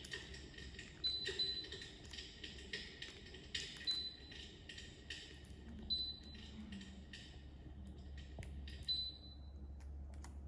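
Electric fireplace's built-in crackling-fire sound effect: irregular pops and crackles, some with a short bright ping, over a steady low hum.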